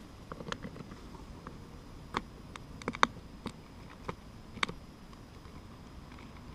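Plastic suspension parts of an HPI Savage X 4.6 RC truck clicking and knocking in an irregular series as the wheel is rocked by hand, the loudest click about three seconds in. The knocks come from play in the upper and lower arm and shock mounts.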